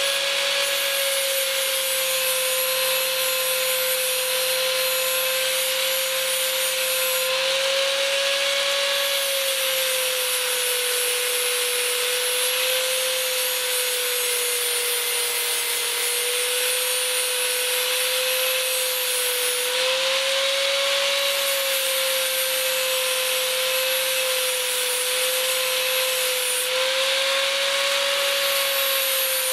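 A high-revving power tool cutting metal, running steadily with its pitch dipping and recovering slightly as it is loaded.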